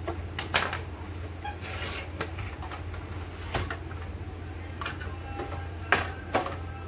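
Plastic side cover of an HP LaserJet 1020 printer being pried off its clips and handled: several sharp plastic clicks and knocks, the loudest a little before the end, over a steady low hum.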